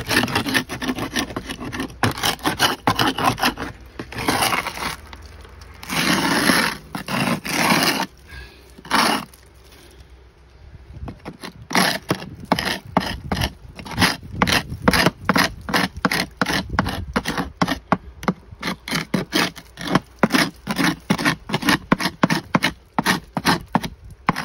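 Homemade paint scraper, a steel blade bolted to a wooden handle, scraping cracked, peeling paint off old wooden clapboard siding in quick, repeated strokes, with a short pause about ten seconds in.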